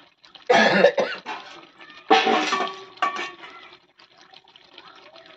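A woman coughing: a loud bout about half a second in, another about two seconds in, and a smaller cough near three seconds.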